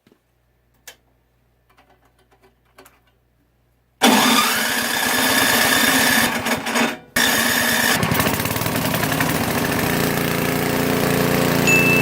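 A few faint clicks, then a motor starts abruptly about four seconds in and runs loudly, its pitch rising quickly and then holding steady, with a brief drop-out near seven seconds.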